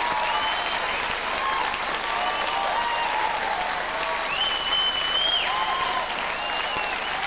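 Studio audience applauding steadily, with a few high whistles over the clapping.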